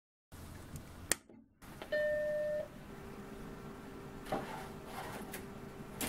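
A Macintosh SE being switched on: a sharp click about a second in, then its single startup beep, a steady tone about two-thirds of a second long. The machine then keeps up a steady low hum, with a couple of faint clicks.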